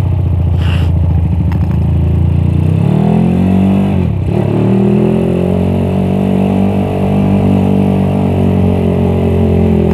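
Suzuki Satria FU motorcycle's single-cylinder engine, enlarged to 200cc, running while riding: low, even revs at first, then revving up about three seconds in. There is a brief drop in revs around four seconds, then it pulls steadily at higher revs.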